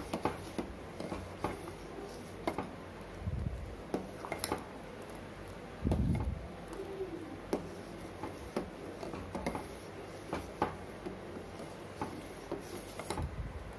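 Steel ladle stirring milk in a stainless steel pot, clinking and scraping against the pot's sides and bottom in irregular light clicks, with two dull thumps a few seconds apart.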